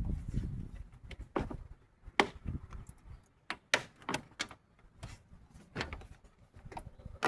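Irregular sharp clicks and knocks, about a dozen over several seconds, like hand tools and parts being handled. A low rumble runs under the first second or so.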